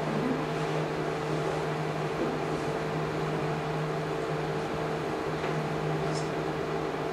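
Steady room hum and hiss from fans, such as the projector's cooling fan and the air conditioning, with a faint short tick about six seconds in.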